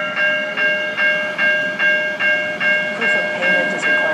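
Light rail warning bell ringing rapidly, about two and a half strikes a second, each ring carrying on into the next.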